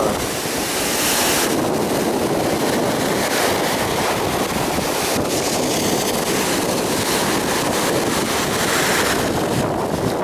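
Red Sea surf breaking and washing up on the shore in surges a few seconds apart, with wind buffeting the microphone.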